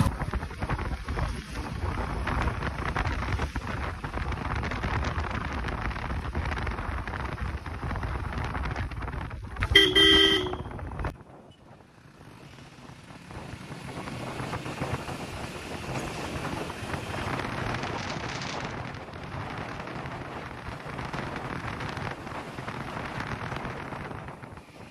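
Road and wind noise while riding a motorcycle, with a vehicle horn tooting once, briefly, about ten seconds in. The noise drops off abruptly about a second later and comes back as a quieter, steady wind rush.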